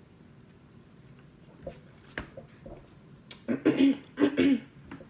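A person coughing twice in quick succession, two short rough bursts about half a second apart, after a few faint clicks.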